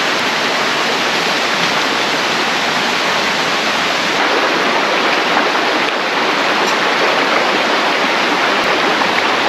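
River water rushing steadily over a rocky bed, a loud, even rush of flowing water.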